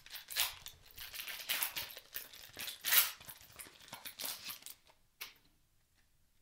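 Foil wrapper of a Panini Prizm retail trading-card pack being torn open and crumpled by hand: a run of crinkling rustles, loudest about three seconds in, that stops near the end with one light tick.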